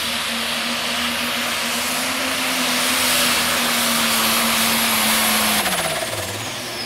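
Pulling tractor's diesel engine running flat out under load at a steady high pitch, then backing off about two thirds of the way through as the revs drop sharply at the end of the pull. A high turbo whistle slides down in pitch as the throttle comes off.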